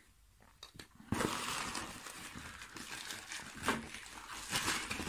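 Clear plastic zip bag crinkling and rustling as it is handled and lifted out of a cardboard box, starting about a second in after a few light clicks.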